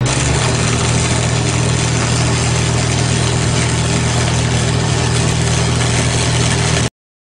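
An engine idling steadily, a low even rumble under a loud hiss, cutting off abruptly near the end.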